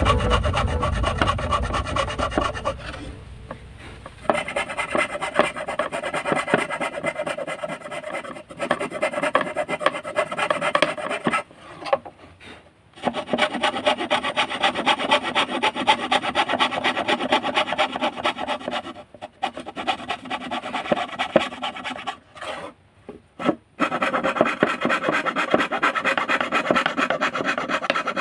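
Hand fretsaw cutting wood in quick, short back-and-forth strokes, stopping briefly several times and then carrying on.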